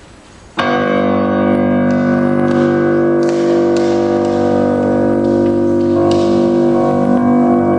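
Solo grand piano: a loud chord struck about half a second in and left ringing, with single high notes struck over it and a new chord about six seconds in.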